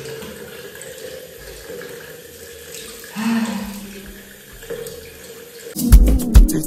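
A bathroom tap running steadily into a sink while a face is washed. About a second before the end, music with a beat comes in loudly.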